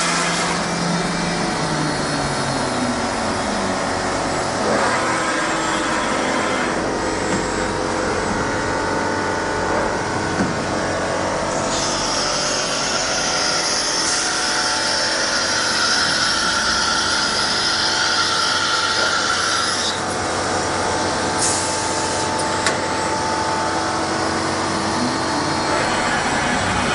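Netmak CNC milling machine running, a steady mechanical drone with several held tones. A louder high hiss joins for about eight seconds in the middle.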